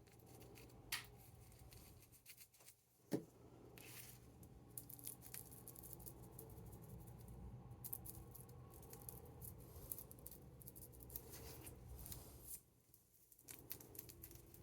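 Faint crinkling and small clicks of rolling paper being handled as a joint is rolled, with a sharper click about three seconds in.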